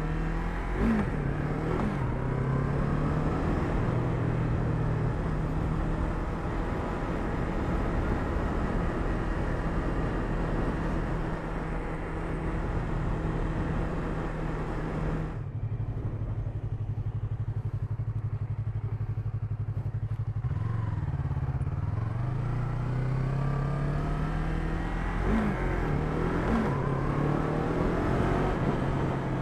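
Yamaha MT-03's parallel-twin engine accelerating through the gears under wind rush, its pitch climbing in repeated rises. About halfway through, the wind drops away and the engine settles to a steady idle for about five seconds, then revs and pulls away again.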